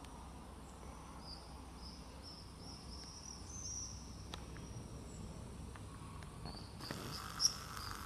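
Shrill high-pitched chirping of evening wildlife in short strung-together runs. About seven seconds in, a short burst of noise with a sharp click, the loudest moment.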